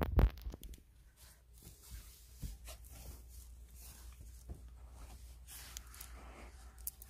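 A sharp thump, then faint, scattered scratching and rustling of fabric as a cat paws and clambers at a cushioned floor chair.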